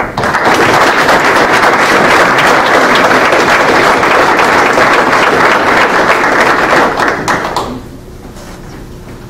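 Audience applauding: many hands clapping at once in a dense crackle, dying away a little before the end.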